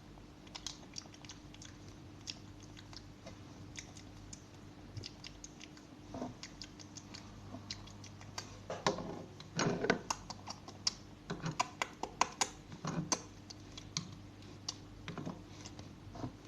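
Irregular light clicks and taps of plastic Play-Doh toy pieces being handled, sparse at first and busier and louder from about eight seconds in, over a faint steady hum.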